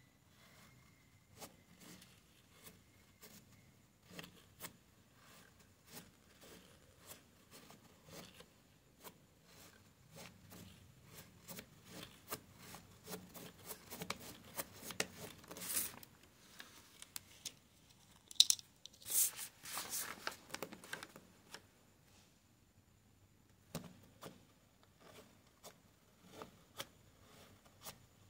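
Plastic spirograph gear wheel being turned inside its toothed ring under a pen: a run of small irregular clicks from the plastic teeth, with the pen scratching on paper. A few louder scrapes come between about 15 and 21 seconds in.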